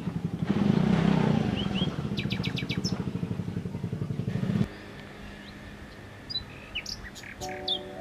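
Birds chirping and trilling outdoors over a small engine running with a fast pulsing beat, which cuts off abruptly about four and a half seconds in.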